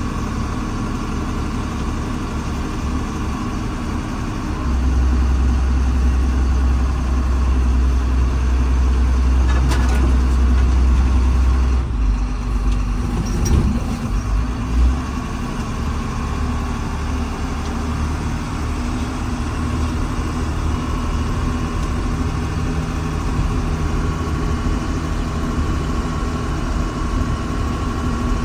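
Diesel engine of earthmoving machinery running steadily. From about five seconds in to about twelve it works harder with a deeper, louder drone, and a couple of short knocks come soon after.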